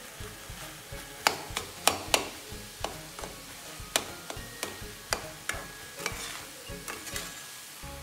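Metal spatula stirring a thick vegetable stir-fry in a metal pan, scraping and clinking against the pan's side at irregular moments, over a faint sizzle.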